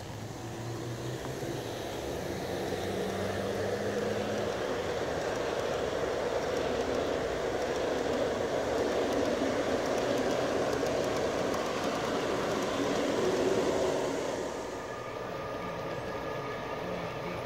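G scale model freight train rolling past close by, its metal wheels running on the rails with a steady rumble that builds as the cars go by. A low hum from the diesel locomotive is heard in the first few seconds. About fifteen seconds in the sound drops to a quieter rolling of another passing train.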